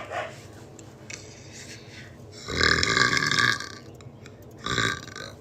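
A woman belching: one long, loud burp about two and a half seconds in, then a shorter burp near the end. Repeated belching put down to acid reflux.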